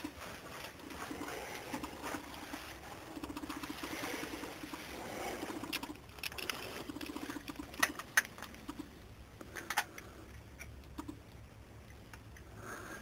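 Footsteps over loose rock rubble in a mine tunnel, with a few sharp knocks of stone on stone around the middle. A low pulsing sound comes and goes in stretches of about a second.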